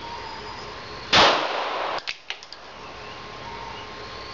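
A single 9mm handgun shot about a second in: a loud sharp crack with a short ringing tail. A couple of faint sharp clicks follow about a second later.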